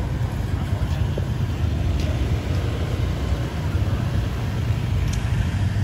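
Many motor scooters running slowly in dense traffic, a steady low engine rumble.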